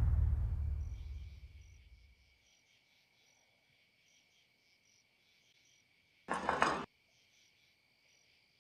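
Crickets chirping steadily and faintly as a fading swell dies away over the first two seconds. About six seconds in, a loud half-second rush of noise cuts in and stops abruptly.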